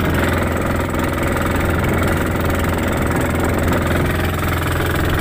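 Bangka boat engine running steadily at speed, a loud unbroken drone with a strong low hum.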